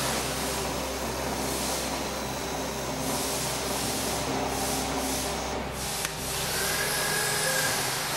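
WEISS WBL290F bench lathe running during a thread-cutting pass, a steady whirring hiss of motor, gears and tool on the work. A low hum drops away about six seconds in.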